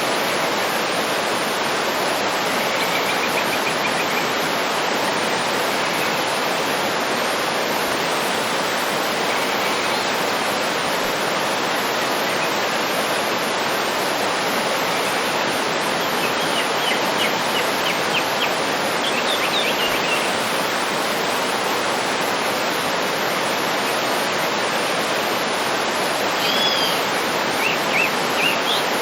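Waterfall rushing steadily, with small birds chirping over it: a short trill a few seconds in, a run of quick chirps past the middle, and more calls near the end.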